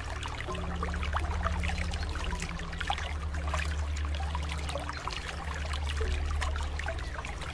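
Rapid, irregular clicking of computer keyboard typing over a low, steady droning hum.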